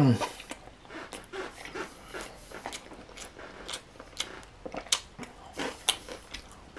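Close-up mouth sounds of a bite into a burger coated in crushed Hot Cheetos, then chewing with many short, sharp crunches. A brief falling vocal sound comes right at the start of the bite.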